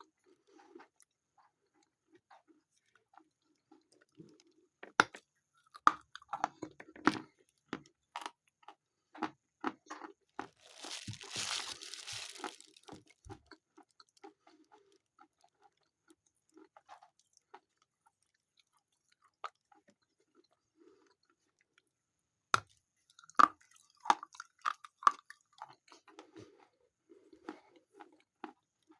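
Biting and chewing a piece of Khrapovsky chalk in two bouts, one a few seconds in and one past the middle, each a short run of sharp crunches that soon stops because the soft, slightly sandy chalk barely crunches and dissolves quickly, with quieter chewing between. A few seconds of rustling hiss near the middle.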